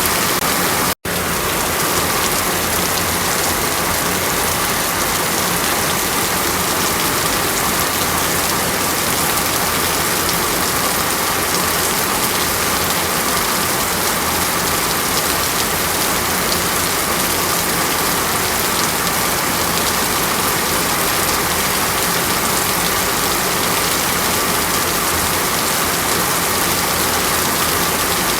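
Steady rushing water, an even hiss of falling or running water with no change in level, broken once by a split-second gap in the sound about a second in.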